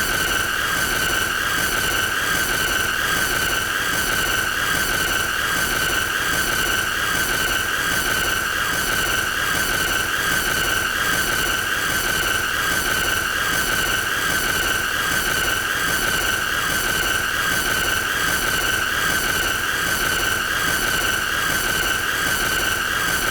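A continuous shrill, high-pitched squealing tone held at one steady pitch, with a faint regular pulsing and no break.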